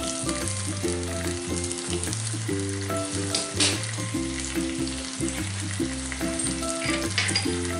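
Chicken in masala sizzling as it fries in a stainless steel kadai, a steady hiss, under background music of held notes over a bass line.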